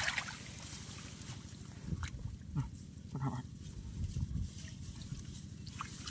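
Soft splashing and sloshing in shallow muddy water as hands feel through a rice-field puddle for fish, with a few short knocks and brief low sounds.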